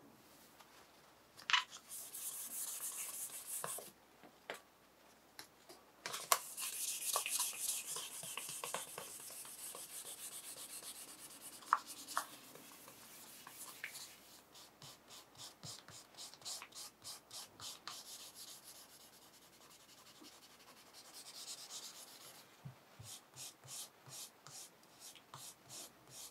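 Hand rubbing and sanding on a guitar's wooden neck. First a scratchy hiss, then quick back-and-forth strokes, about two and a half a second, from about halfway through.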